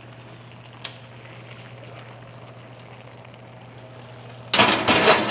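Skillet of squash faintly sizzling off the burner, then, about four and a half seconds in, a loud short clatter and scrape as the hot pan goes into the oven to broil.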